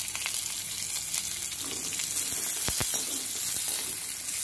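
Sliced onions sizzling in hot oil with cumin seeds and garlic in an aluminium kadai, a steady hiss, as a perforated steel spatula stirs them. Two quick knocks of the spatula against the pan come a little past halfway.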